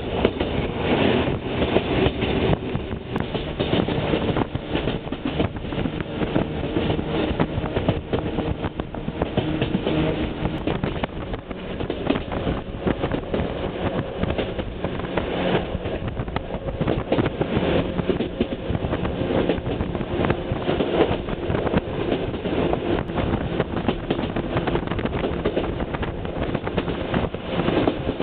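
Chichibu Railway train running, heard from on board: a steady rumble of wheels on the rails with a fine, dense clatter and a faint steady hum.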